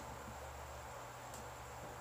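Quiet room tone: a steady hiss over a low electrical hum, with one faint high tick a little past halfway.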